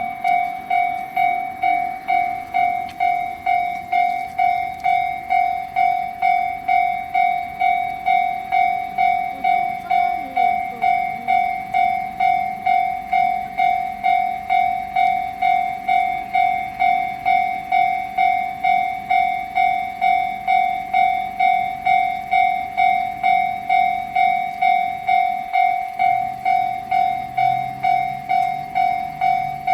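Japanese level-crossing warning bell ringing its 'kan-kan' alarm steadily at one pitch, a little under two strikes a second, signalling an approaching train.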